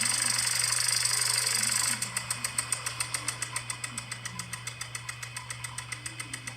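Rotating lawn sprinkler spraying with a steady hiss, then about two seconds in a fast, even ticking of some six or seven ticks a second that slowly fades as it turns.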